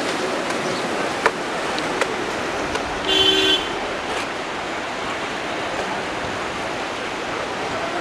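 Steady rush of floodwater released through a dam's spillway, churning the river below. A short horn toot cuts in about three seconds in, with a couple of sharp clicks just before it.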